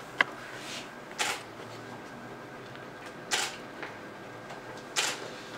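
Camera shutter firing three times, about two seconds apart, each a short sharp snap, after a brief sharper click just at the start.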